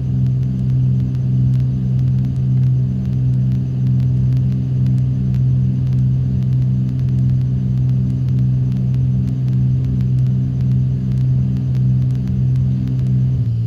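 Cessna 310's twin piston engines droning steadily at climb power just after takeoff, with a slow regular throb. Near the end the pitch steps down slightly.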